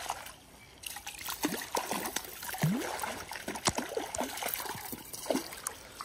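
A hooked brown trout splashing and thrashing at the river's surface as it is reeled in to the net, a run of irregular splashes after a brief lull just after the start.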